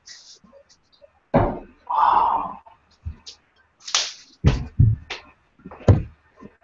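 A series of sharp knocks and thuds, among them a steel-tip dart striking a bristle dartboard.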